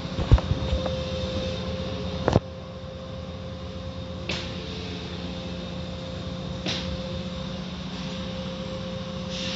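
Automatic tunnel car wash heard from inside the car: a steady mechanical hum, with a few thumps and a sharp knock in the first couple of seconds as the cloth strips hit the car, and short hissing swells of spray later on.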